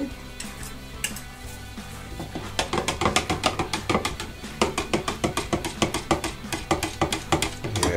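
Spoon stirring thick cold process soap batter in a plastic pitcher, tapping and scraping against the sides several times a second from about two and a half seconds in. Background music plays underneath.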